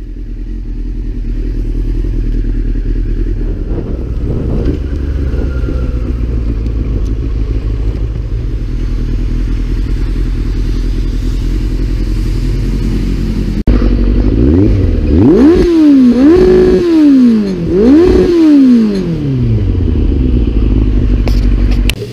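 Yamaha FZS1000 Fazer's inline-four engine running steadily at low revs, then, after a cut about two-thirds of the way in, revved three times in quick succession, each blip rising and falling in pitch, before settling back to a steady note.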